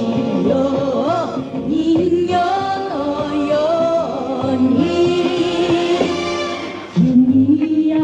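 A song: a sung melody with long held notes over instrumental accompaniment.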